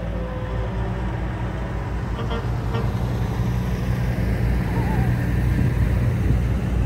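Heavy truck engine rumbling, getting steadily louder as it draws closer.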